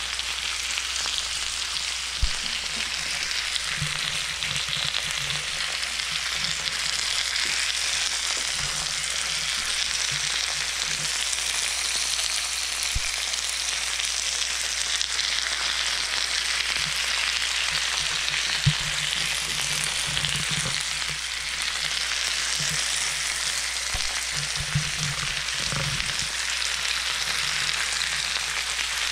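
Marinated New York strip steaks sizzling in oil on a George Foreman electric grill plate: a steady frying hiss broken by a few sharp pops.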